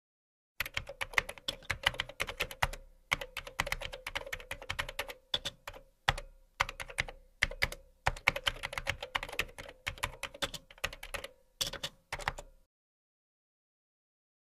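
Computer keyboard typing: quick runs of keystroke clicks broken by short pauses, over a faint steady tone. It stops about two seconds before the end.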